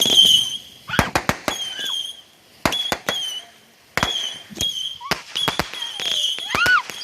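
Consumer fireworks going off: a quick, irregular string of sharp bangs, with a high whistle sounding again and again between them.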